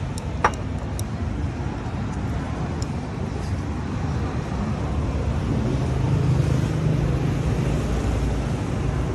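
Steady road-traffic rumble with a few light clicks about half a second in and an engine hum passing by a little after the middle.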